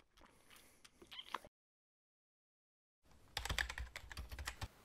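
Keyboard typing clicks used as a title sound effect: a few faint taps at first, then a quick run of clicks starting about three seconds in.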